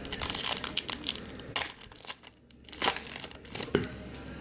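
Plastic trading card pack wrapper crinkling and tearing as it is opened, with irregular crackles and a short pause about halfway through.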